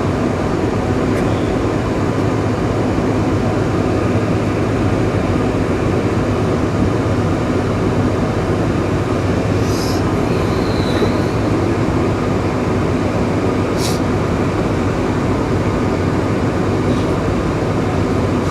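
Steady low rumble inside the cabin of a Boeing 747-400 while it taxis, its engines at idle thrust, with a low hum under it. There are a couple of faint clicks, about halfway through and again a few seconds later.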